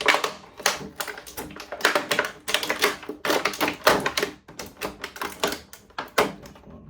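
Plastic packaging tray crackling and clicking in quick irregular snaps as a toy ship is pried out of it by hand.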